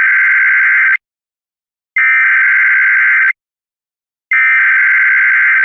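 Emergency Alert System SAME header: three bursts of digital data tones, each about a second and a half long, with a pause of about a second between them.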